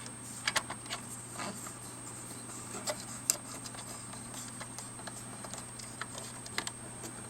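Small screwdriver and tools clicking against the plastic shutter housing of a Diana+ toy camera as its small metal screws are driven in: a few sharp, separate clicks and ticks, scattered and irregular.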